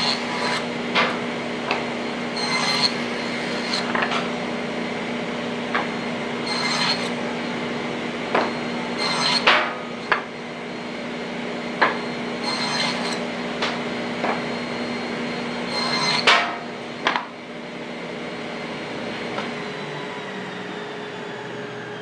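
Woodworking with hand tools: irregular sharp knocks and taps on wood, with a short scraping stroke every few seconds, over a steady hum. The knocking stops a few seconds before the end.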